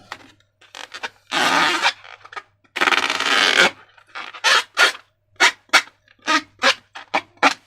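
Slime being squished and worked by hand: two longer squelching squishes, then a quick run of short squishes.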